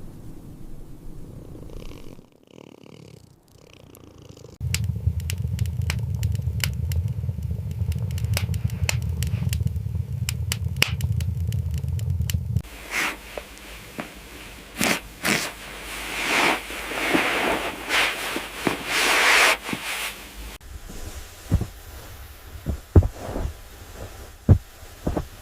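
A kitten purring, a steady low hum for about eight seconds, followed by irregular crackling and clicking.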